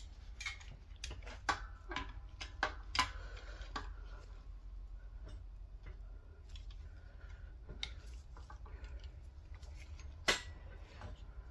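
Irregular metallic clicks and taps of hand tools worked against a Honda Fit lower control arm bushing: channel-lock pliers gripping it, then a screwdriver. The louder clicks come in the first three seconds, with one sharp one near the end.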